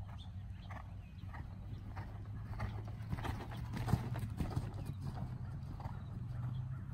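A horse's hooves striking sand arena footing at a trot, a regular beat of soft thuds, loudest about four seconds in as the horse passes close. A steady low rumble runs underneath.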